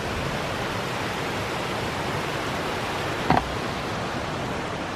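Steady rushing of a mountain creek's running water, an even hiss, with one brief short sound about three seconds in.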